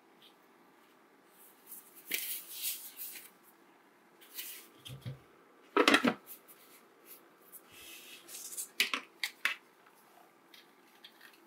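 Hard plastic parts of an ultrasonic essential oil diffuser being handled. There is scraping and rustling, then a loud plastic clunk about six seconds in as the frosted cover is set onto the base. Near the end come lighter rustles and a few sharp clicks as the plastic power adapter and its coiled cord are picked up.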